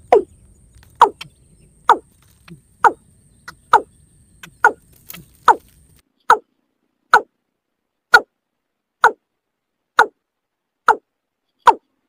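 Watercock calling: a steady series of short notes, each falling in pitch, at about one a second.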